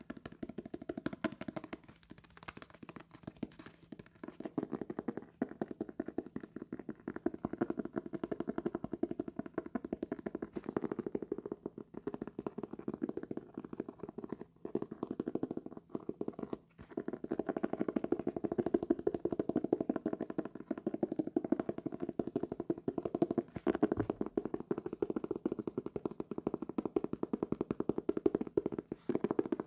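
Teeth of a comb scraped and tapped across calendar paper, making a dense run of rapid fine ticks that grows somewhat louder in the second half.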